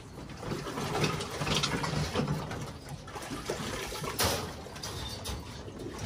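Water sloshing and splashing as plastic pigeon drinkers are washed by hand in a bucket, with a sharper plastic knock about four seconds in.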